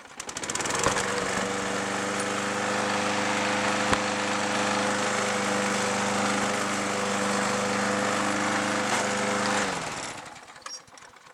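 Small four-stroke engine of a walk-behind lawn mower being pull-started cold after priming: it catches within about a second and runs steadily for roughly nine seconds, then winds down and stops near the end.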